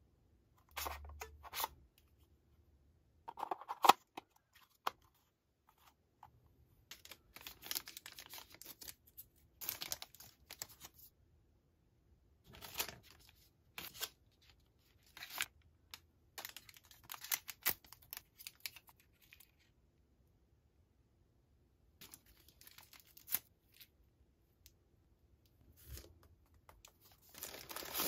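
Clear plastic packaging bags crinkling and tearing as they are handled and opened, in irregular bursts with short gaps. There is a sharp click about four seconds in, and a longer rustle near the end.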